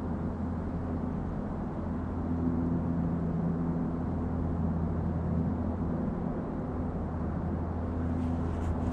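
Steady low engine drone with a hum whose higher tones fade in and out; a few faint clicks near the end.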